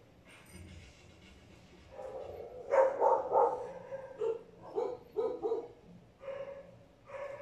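Dog barking: a loud cluster of barks about three seconds in, then several shorter barks about half a second apart, and a couple more near the end.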